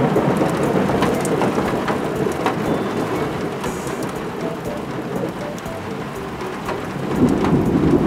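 Heavy thunderstorm rain pouring onto concrete, with many close drops ticking. A low rumble of thunder swells near the end.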